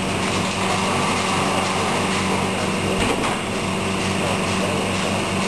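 Steady machine drone with a low hum, and a brief knock about three seconds in.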